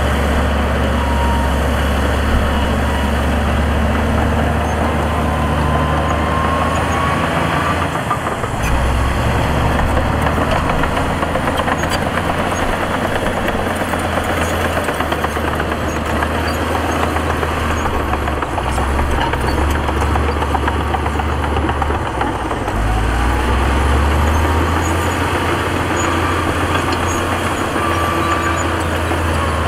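Heavy diesel engines of earthmoving machinery running, a steady low drone whose pitch and strength shift about 8 seconds in and again near 23 seconds.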